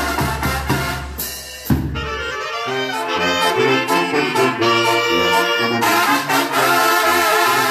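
Mexican banda brass band playing live. A drum and bass beat runs for about a second, then breaks off with a sharp hit. From there the trumpets and trombones carry the melody over stepping sousaphone bass notes.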